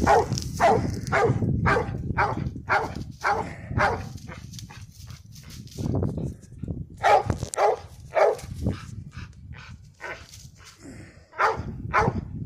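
Treeing cur barking at a tree, short barks about two a second: a tree bark, the dog calling that it has game treed. The barking eases off to a few spaced barks in the middle and picks up again near the end.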